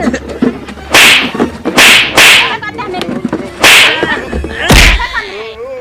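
About five loud slaps, a person being struck by hand again and again at an uneven pace, each a sharp crack, with a voice calling out between them.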